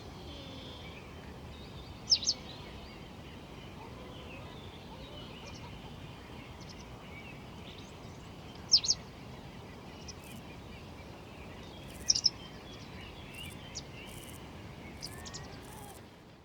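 A bird giving a sharp, high two-note chirp three times, with fainter bird chirps scattered between, over a steady outdoor background hiss.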